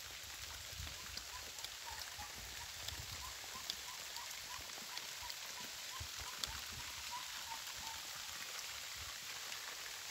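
Steady rain, with scattered drips ticking down from a roof edge. A soft high chirp repeats about twice a second, stopping near the end.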